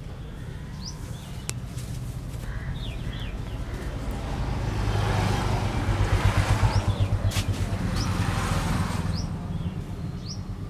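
Birds chirping over a steady low hum. In the middle a rushing noise swells and fades, pulsing quickly near its loudest point.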